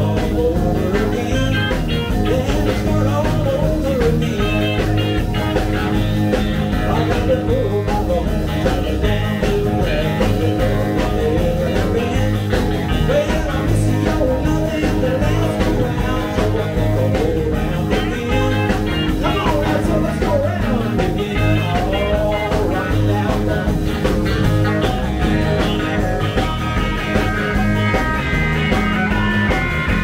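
Live rock and roll band playing with a steady beat, electric guitar to the fore over bass and drums.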